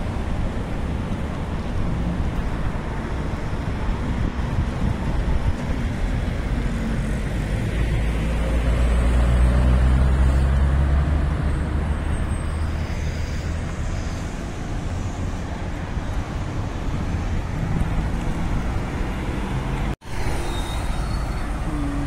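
Street traffic: cars driving past and pulling away at a junction, a steady road roar. About eight to twelve seconds in, a passing vehicle's low engine rumble swells louder. The sound cuts out for an instant near the end.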